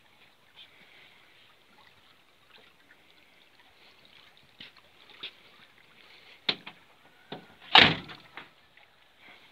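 Mercedes-Benz Sprinter van's front cab door slammed shut once with a loud thud near the end, after a few lighter clicks and knocks.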